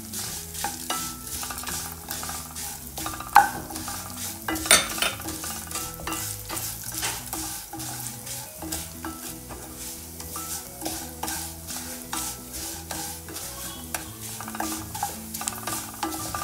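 A spatula stirring and scraping vermicelli and sago pearls frying in a little oil in a stainless steel pan, in repeated short strokes, with two sharper knocks of the spatula against the pan about three and a half and five seconds in. The semiya and sabbi are being roasted until golden and puffed.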